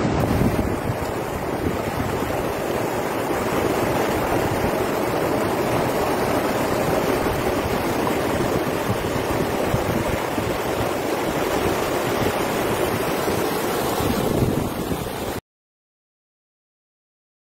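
Rain-swollen floodwater rushing over a rocky bed in white-water rapids: a steady, loud rush that cuts off abruptly about fifteen seconds in.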